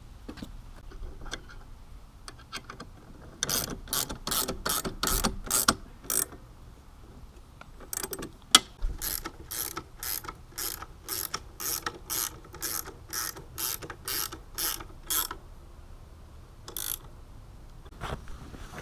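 Ratchet wrench clicking as it is worked back and forth to tighten a fastener on a motorcycle pannier rack. A run of about eight strokes is followed by a pause, then an even run of about two strokes a second for some seven seconds, and a single click near the end.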